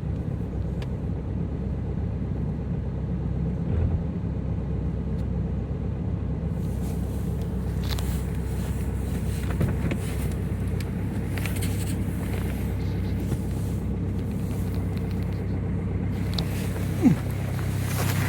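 Ford Focus 2.0 TDCi four-cylinder diesel idling steadily after a hard cold start in deep frost. A brief squeak about a second before the end.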